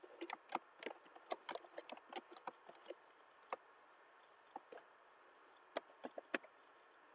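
Computer keyboard keys being typed: a quick run of faint clicks for about three seconds, then a few scattered keystrokes.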